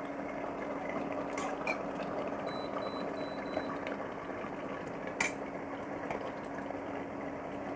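Taro and meat curry simmering in an open pressure cooker on an induction cooktop, a steady bubbling hiss over a low hum. A steel ladle clinks against the pot a few times, and a few faint short beeps sound from the cooktop as its power is turned down from 2000 to 1200.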